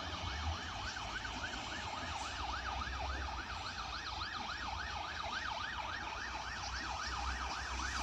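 A siren, its pitch sweeping up and down about four times a second, over a low rumble.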